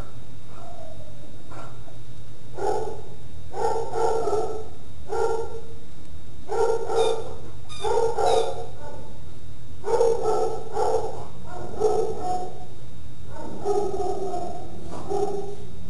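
A dog barking repeatedly, a dozen or so short barks in quick runs starting about two and a half seconds in, over a steady low hum.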